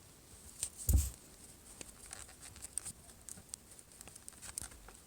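Scattered small clicks and scratches of a craft knife prying the glass screen of a Samsung Galaxy S4 up from its adhesive, with one louder knock about a second in.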